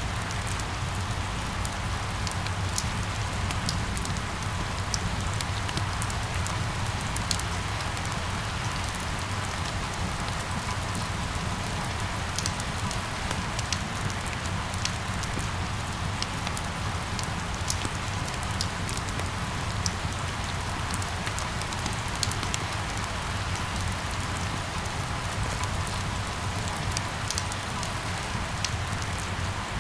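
Steady rain falling and pattering on surfaces, with scattered sharp drips on top of a constant low hum.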